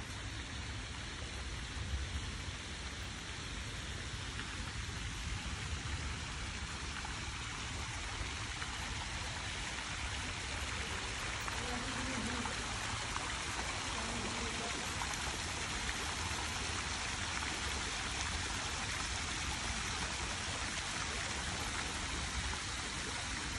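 Several fountain jets spraying up and splashing back into a shallow pool: a steady hiss of falling water that grows a little louder over the first half.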